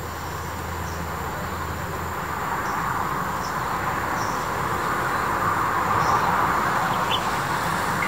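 A passing vehicle's noise swells steadily, peaking about six seconds in, over a low hum that dies away early on. A few faint, short high chirps sit above it.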